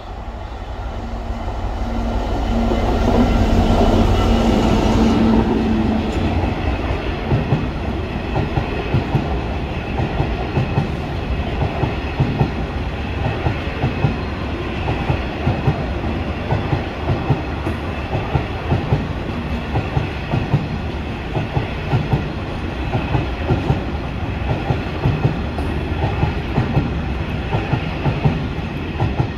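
DB Cargo Class 66 diesel locomotive, its two-stroke V12 running under power, passing close by and loudest a few seconds in, followed by a long train of loaded covered hopper wagons rolling past, wheels clicking steadily over the rail joints.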